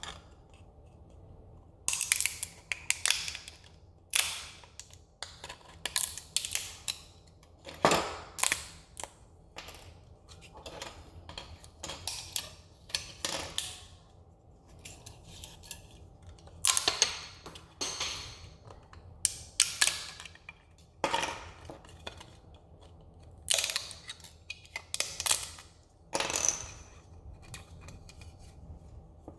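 Support material being snapped and pried off a 3D-printed plastic part: irregular bursts of sharp cracking clicks, each flurry lasting a second or two with short pauses between.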